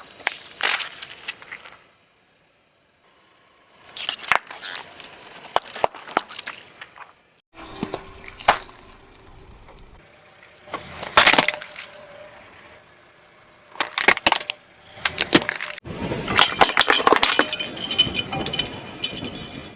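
Car tyre rolling over brittle objects and crushing them: sharp cracking, snapping and crunching in several separate bouts, with abrupt cuts between them.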